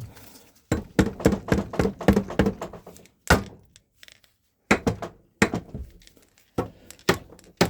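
Metal tools knocking and clanking on a Suzuki DS100 two-stroke engine as its cylinder head bolts are worked on. A quick run of knocks and clicks comes in the first couple of seconds, then single sharp knocks about every second.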